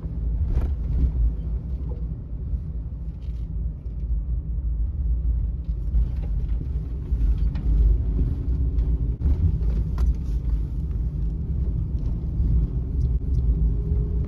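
Suzuki Every kei van on the move, heard from inside the cabin: a steady low rumble of its small three-cylinder engine and road noise, with scattered small knocks and rattles.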